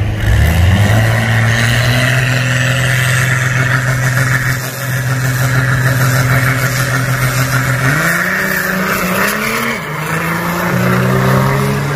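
Diesel Dodge Ram pickup engine held at steady high revs on the start line, pouring black smoke, then climbing in pitch as it pulls away about eight seconds in. Near the end another diesel pickup's engine climbs in pitch as it accelerates.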